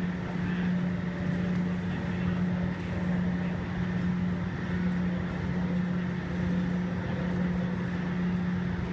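A steady mechanical hum held at one constant low pitch over a noisy rumble, unchanging throughout.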